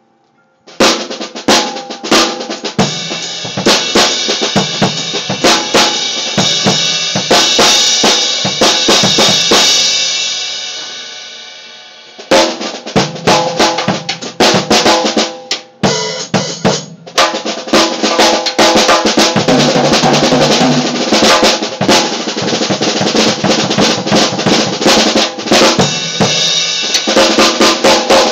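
Acoustic drum kit played hard: a dense run of snare, tom and bass drum hits with cymbals ringing over them, starting about a second in. Around ten seconds in the cymbals ring out and fade, then the playing starts again about twelve seconds in and keeps going busily.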